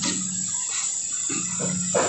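Gas brazing torch flame hissing steadily while copper refrigeration pipe joints are brazed, with a few brief crackles.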